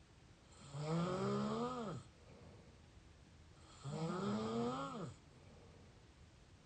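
Mouth snoring: two long snores about three seconds apart, each over a second long, its pitch rising a little and then dropping off as it ends, with quieter breathing between.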